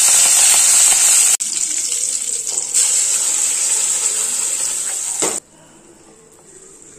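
Curry leaves sizzling and spluttering in hot oil for a tempering, then ground coriander chutney hissing as it is poured into the hot oil. The sizzle breaks off briefly about a second and a half in and stops suddenly a little past five seconds in.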